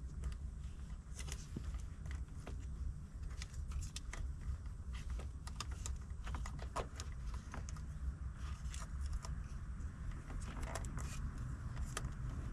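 Hands working with wiring and a roll of electrical tape: irregular small clicks, ticks and crackles, over a steady low rumble.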